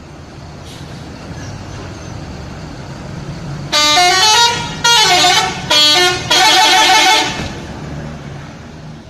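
A bus's telolet musical horn plays a quick multi-note tune in four blasts in the middle, the pitch stepping between notes. It sounds over the bus's engine, which grows louder as the bus approaches and fades after the horn.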